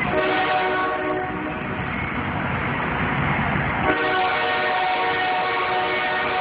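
Train horn sounding one long steady chord over the low rumble of passing railcars; the rumble drops away suddenly about four seconds in while the horn keeps sounding.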